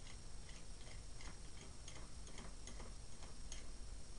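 Faint, irregular small clicks and taps of a soldering iron tip being cleaned of black oxide, over a low steady hum.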